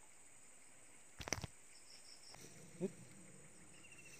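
Faint insect chirping: rows of quick, high pulses, with a thin steady high tone joining near the end. A short crackly burst about a second in and a brief low call near three seconds in stand out over it.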